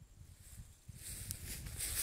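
Footsteps crunching through dry grass and straw mulch, with a low wind rumble on the microphone; the crunching picks up about a second in.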